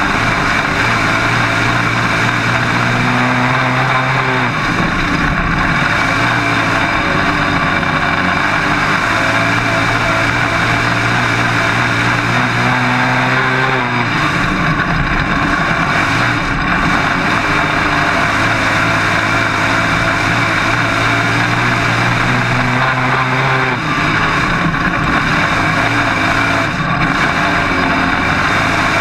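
Dirt-track modified race car's V8 engine running hard at racing speed, heard from inside the open cockpit. The note holds steady, then turns rougher and shifts about every ten seconds as the car goes through the laps.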